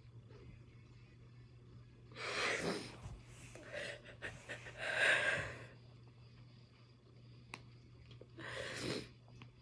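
A woman's breathy gasps and sighs, overcome with emotion close to tears: a cluster of bursts from about two to six seconds in and one more near the end. A steady low hum runs underneath.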